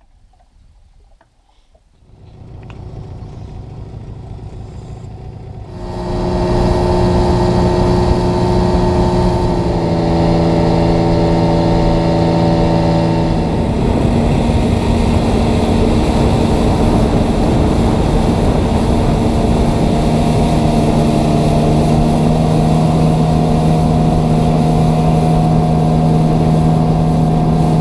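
Boat motor running under way: faint at first, loud and steady from about six seconds in, with a hiss of wind and water over it. Its pitch shifts a few times, near ten, fourteen and twenty seconds in.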